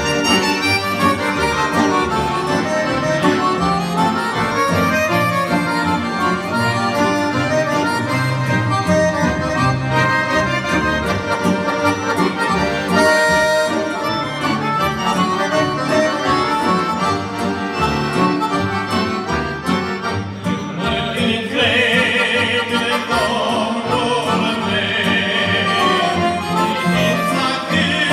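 Two piano accordions playing a hymn melody together; about twenty seconds in, men's voices come in singing over them.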